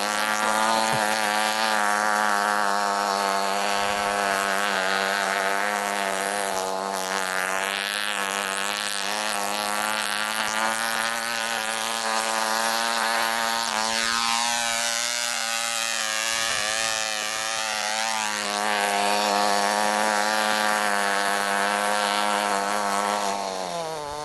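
Cox .049 two-stroke glow engine of a 1973 Cox Ski-Doo model snowmobile running flat out, a steady high-pitched buzz. Its pitch drops just before the end as the engine slows.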